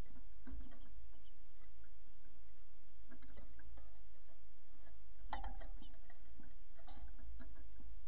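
Scattered light taps and clicks of house finches and a northern cardinal pecking and hopping on a wooden platform feeder full of seed, in a few small clusters with the loudest about five and a half seconds in, over a steady low hum.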